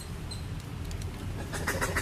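Steady low rumble with a couple of faint high chirps, then about one and a half seconds in a fast run of sharp, high clicking calls from a small animal or bird begins, roughly six a second.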